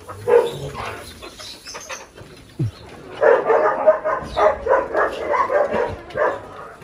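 A dog barking: a couple of short barks at the start, then a fast run of many barks from about three seconds in until near the end.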